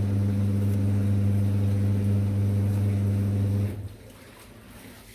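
A loud, steady low machine hum, like an electric motor or appliance running, which cuts off suddenly about three and a half seconds in, leaving quiet room tone.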